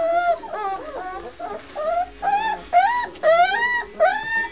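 Three-week-old White Swiss Shepherd puppies whining: a quick run of short, high, rising cries, about two a second.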